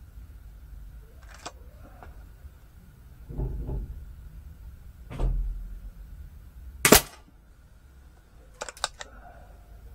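Black Ops Soul Langley air pistol fired once about seven seconds in, a single sharp crack. It is preceded by a few handling knocks as the pistol is loaded and settled on its rest, and followed by a quick cluster of sharp clicks.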